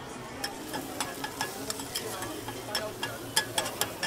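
A metal spatula scraping and clacking on a flat-top griddle as sliced onions, chilli and greens are stir-fried: a run of sharp, irregular clicks, several a second, over a steady sizzle.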